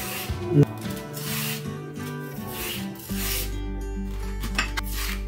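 A kitchen knife scraping the peel off a raw green plantain, with repeated rasping strokes for about three seconds, then a couple of sharp clicks near the end. Soft background music plays underneath.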